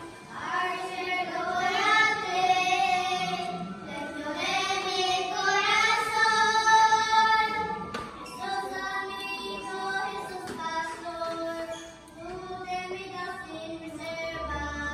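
Children singing a First Holy Communion song, with sustained held notes.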